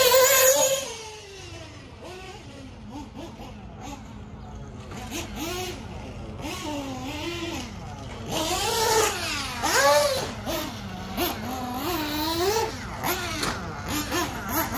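HB Racing D819RS 1/8-scale nitro buggy engine revving up and down as it laps a dirt track, with quick rises and falls in pitch through the jumps and corners. It is loudest right at the start as it passes close, fainter for several seconds, then louder again from about eight seconds in.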